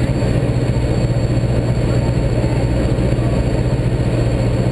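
Cabin drone of a Socata TB9 Tampico's four-cylinder Lycoming engine and propeller in flight, a steady, unchanging low hum with rushing noise over it.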